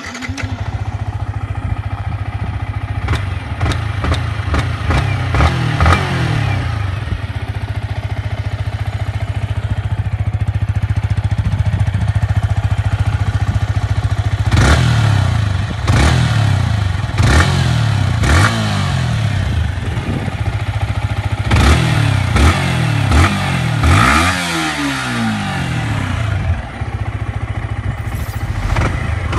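Small single-cylinder motorcycle engine idling through its exhaust, blipped again and again so the pitch climbs and falls with each rev, with a run of quick revs in the second half.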